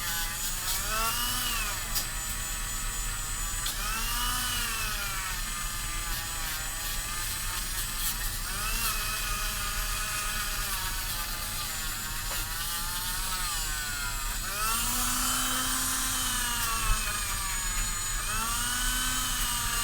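Small electric rotary tool buffing a brass Zippo lighter, its motor whine dipping and rising in pitch every few seconds as it is pressed against and eased off the metal.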